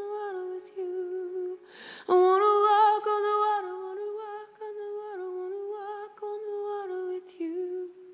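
A woman humming a slow wordless melody in long held notes that step up and down in pitch. A breath about two seconds in leads into a louder note, and the humming stops at the very end.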